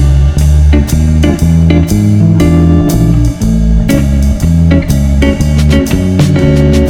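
Background music: a rock/blues-style track with electric guitar, bass guitar and drums, with a strong pulsing bass line.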